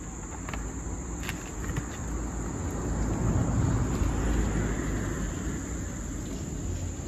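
A steady, high-pitched chorus of insects chirring. Under it a low rumble swells and fades in the middle.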